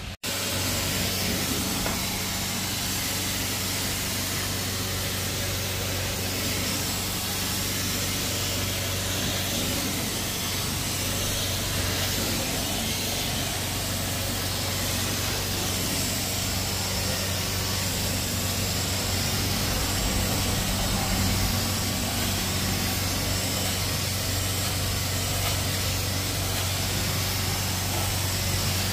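Truck-mounted carpet-cleaning machine running steadily: a constant engine drone under a strong, even rushing hiss of vacuum and spray. It starts abruptly at the very beginning.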